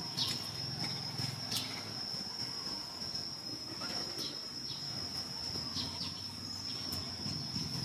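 Steady high-pitched drone of insects, with several short chirps falling in pitch scattered through it.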